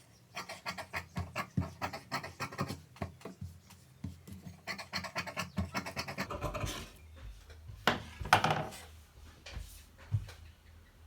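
Quick scratching strokes of a marking tool drawn across cloth, about four a second, as a curved line is marked on blouse fabric; after about six seconds they give way to a few slower, louder scrapes and rustles, the loudest near eight seconds.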